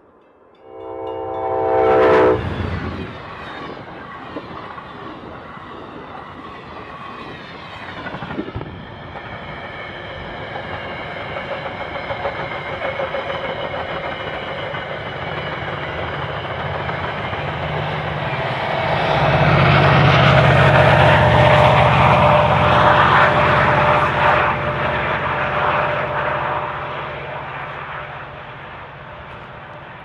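A diesel train horn sounds a chord for about a second, then a train rushes past at speed with a sudden loud whoosh. A Metra bilevel commuter train follows, passing at speed with a steady rumble of wheels and engine hum that swells to its loudest in the second half and then fades.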